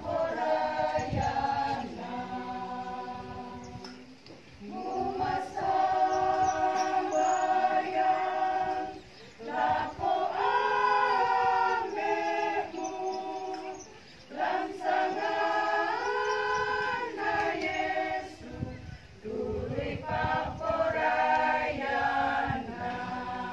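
Choir of elderly singers, mostly women, singing a hymn a cappella in long held notes, phrase by phrase with short breaks for breath between them.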